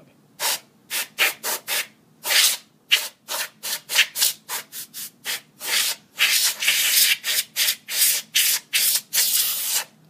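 Can of compressed air hissing in a quick series of short bursts, several a second, with longer blasts in the last few seconds, blowing dust out of the opened Mac mini's interior.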